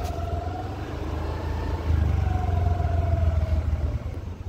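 Motorbike engine running as it rides slowly, with a steady low rumble and a faint wavering whine; it gets louder about two seconds in.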